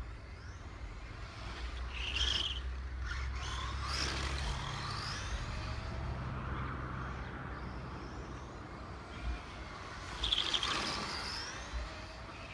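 A low steady rumble that fades after about eight seconds, with two short high-pitched squeaks, about two seconds in and near the end.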